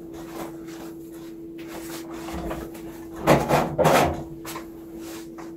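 A steady low hum, with a short cluster of knocks and rubbing about three seconds in, like objects being handled.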